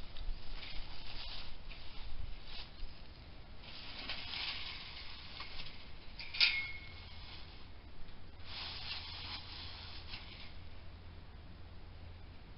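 Chain-link fence panels rattling and scraping in short rustling bursts as they are handled, with one sharp metal clink about six seconds in.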